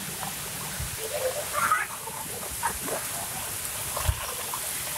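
Steady rain falling on trees and a roof, an even hiss with scattered drips. A brief, louder sound stands out a little under two seconds in.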